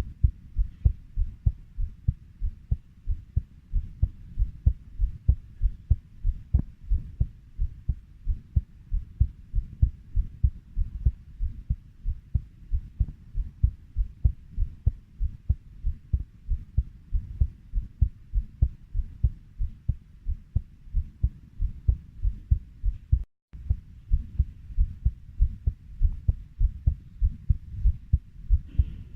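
Heartbeat at a steady 90 beats per minute, each beat a pair of low thumps (lub-dub). It cuts out for a split second about two-thirds of the way through.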